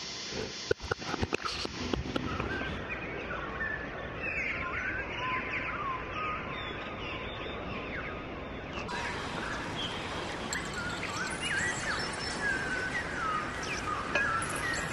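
Many birds chirping in short, quick calls over a steady rushing background, from a field recording used in a sound-art piece. A few sharp clicks and knocks come in the first two seconds, and the sound changes abruptly about nine seconds in, like a splice.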